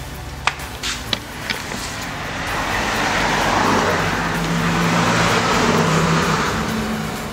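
A car passing on the road, its noise swelling from about two seconds in and fading away near the end. Before it comes, there are a few sharp clicks from footsteps in sandals.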